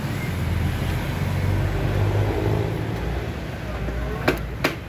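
A steady low rumble of vehicle noise, then two sharp clicks near the end as the metal roof-rail mounting clip is worked in the Toyota Innova's roof channel.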